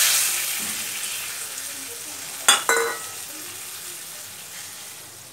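Fried parshe (gold-spot mullet) fish sliding into boiling tomato gravy in a steel kadai: a loud sizzle that starts at once and slowly dies down. About halfway through there are two sharp clinks of metal on the steel pan.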